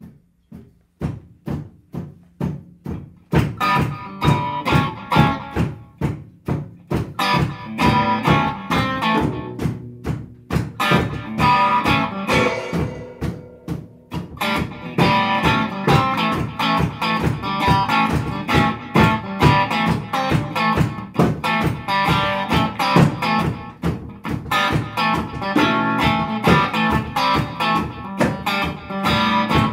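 Psychedelic rock track by a small band: a steady beat alone for about three seconds, then guitars and the rest of the band come in over it.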